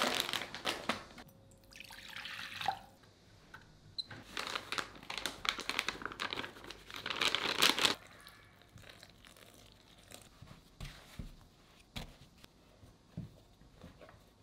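Kitchen handling sounds: crinkling and rustling in bursts for the first eight seconds or so, then a few light taps and clicks.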